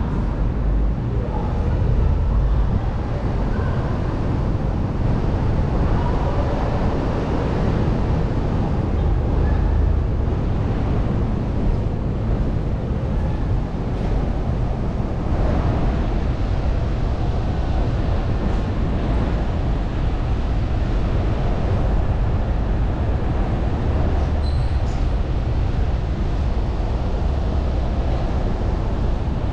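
Car driving along a road: steady low rumble of tyre and engine noise at a constant pace.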